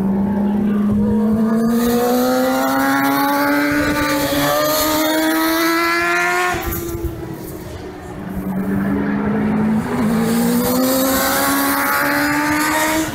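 Racing motorcycle engine at full throttle, its note climbing steadily as the bike accelerates. The note breaks off about six and a half seconds in and comes back a second later, climbing again to the end.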